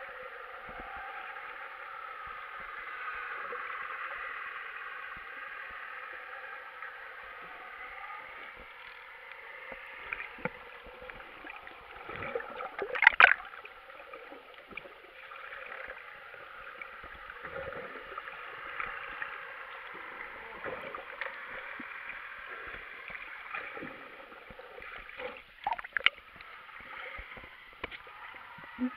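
Muffled underwater noise picked up by an action camera in its waterproof housing while snorkelling: a steady hiss of moving water, broken by a sharp knock or splash about halfway through and a few more near the end.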